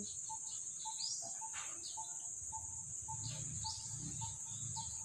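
Garden ambience: a constant high-pitched insect drone, a short note repeating about three times a second, and scattered bird chirps.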